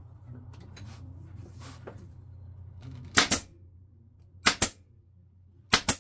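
Pneumatic upholstery stapler firing three times, each shot a sharp double snap, about a second and a quarter apart, driving staples through the folded-over vinyl cover of a golf cart seat. Quieter handling of the cover comes before the first shot, over a faint steady low hum.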